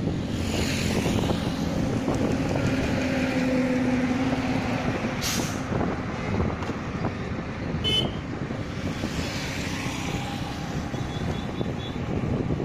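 Road traffic heard from a moving two-wheeler: steady engine and tyre noise, with trucks and other vehicles swelling past near the start and again about nine seconds in, and short sharp hisses or beeps about five and eight seconds in.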